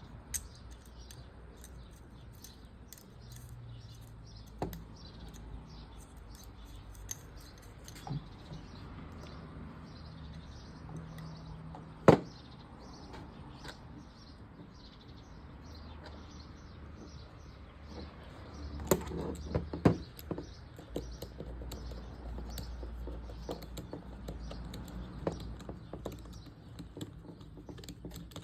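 Scattered small clicks and knocks of tools and metal parts being handled while a Penn spinning/fishing reel is taken apart, with one sharp knock about twelve seconds in and a quick run of clicks near two-thirds of the way through.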